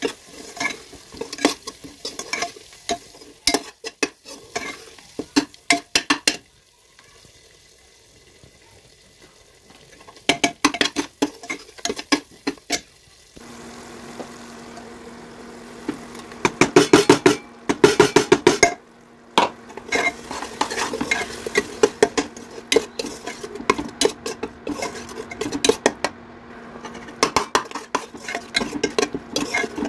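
Metal slotted spoon scraping and clicking against a non-stick pot while stirring a thick frying masala, over a sizzle of hot oil. The stirring stops for a few seconds about a quarter of the way in, then resumes.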